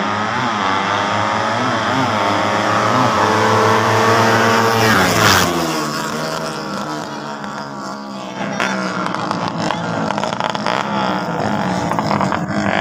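Drag-racing motorcycle engines at high revs, climbing through the gears in repeated rising steps and passing close about five seconds in, the pitch dropping sharply as it goes by. From about eight seconds, engines rev at the start line.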